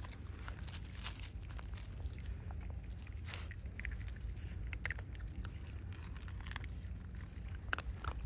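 Japanese raccoon dogs (tanuki) crunching and chewing small hard food pieces: an irregular run of crisp crunches and clicks over a low steady rumble.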